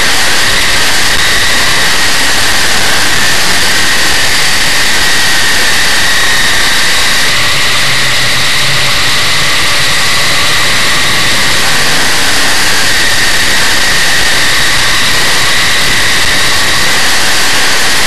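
Dirt modified race car's big-block Chevrolet V8 running hard, heard from inside the car as a loud, even wash of engine noise. For a few seconds near the middle a lower steady hum comes through as the car slows in a bunched-up line of cars.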